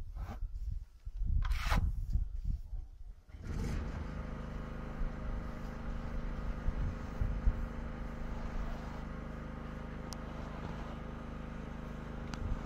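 A steady motor hum that sets in about three and a half seconds in and holds an even pitch, after a few seconds of uneven low rumble.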